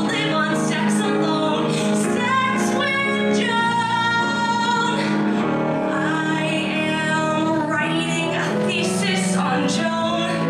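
A woman singing a musical-theatre song into a microphone with instrumental accompaniment. She holds one long high note in the middle.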